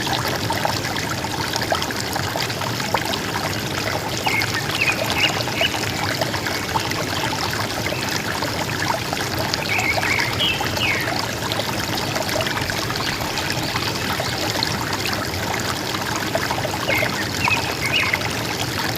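River water gurgling and splashing, with small birds chirping briefly above it three times: about a quarter of the way in, about halfway, and near the end.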